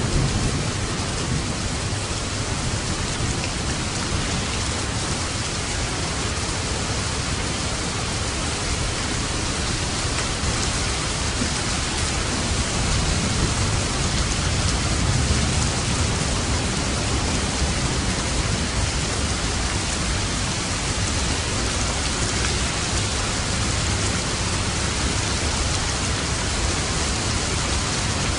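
Steady heavy rain drumming on a roof, with low rumbles of distant thunder: one fading out in the first second and another swelling about halfway through.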